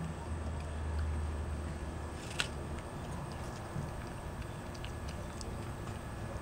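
Black-capped capuchin monkey biting and chewing an apple, with small clicks and one sharper click about two and a half seconds in. A low hum runs under the first half and stops.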